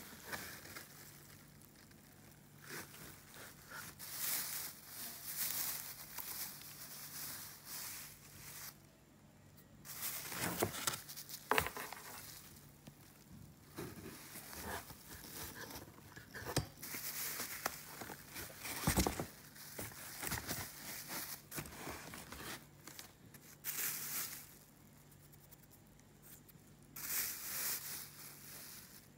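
Clear plastic wrapping crinkling and rustling in irregular bursts as a boxed engine is handled in its foam packing, with a few sharp knocks partway through.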